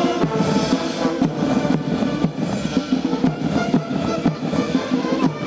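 Military march music: brass and drums playing a march with a steady beat.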